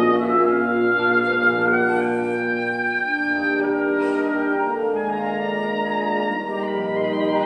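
Instrumental background music: long held notes that shift slowly from one chord to the next.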